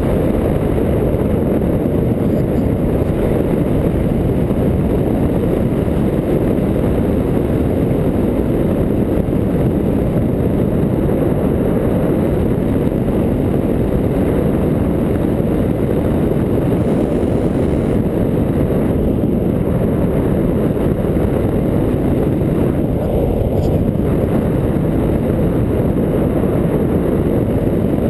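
Wind rushing over the microphone of a camera carried on a paraglider in flight: a loud, even low rumble with no breaks.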